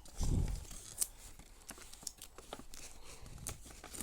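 Paper and packing tape being handled in a craft project. A dull low thump comes shortly after the start, then a string of small crisp clicks and rustles from the paper and tape.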